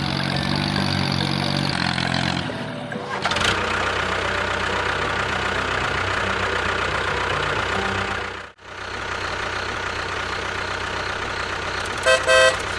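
A vehicle engine running steadily, cutting out briefly about two thirds of the way through, then a horn beeping in short toots near the end. The first few seconds are music.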